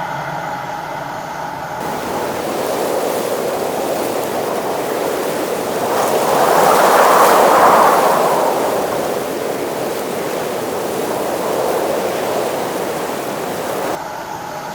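A loud, even rushing noise that starts about two seconds in, swells to a peak about halfway through, then eases off and cuts down near the end.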